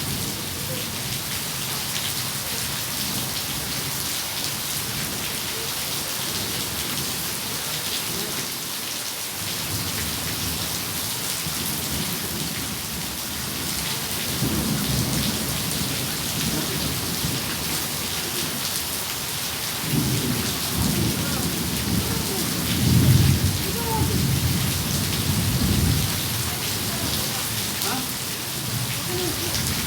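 Steady heavy rain hissing and pattering on surfaces, with thunder rumbling low, first faintly about halfway through and then more strongly in a rolling peal a few seconds later.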